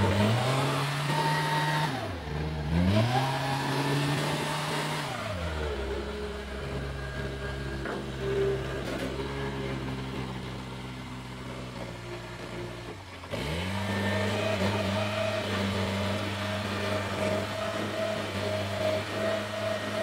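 JCB 3CX backhoe loader's diesel engine running while the loader arm and bucket are worked hydraulically. The engine speed dips and recovers about two seconds in, falls to a slower steady run about five seconds in, then revs up again about two-thirds of the way through and holds a steady higher speed.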